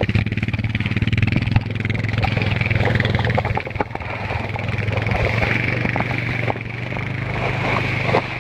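A vehicle engine running at a steady speed, with a constant hum and a hiss over it.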